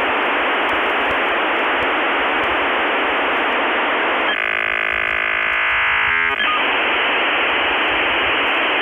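Loud, steady radio-style static hiss with no deep bass. About four seconds in it gives way for roughly two seconds to a steady, buzzy electronic tone, then the hiss returns.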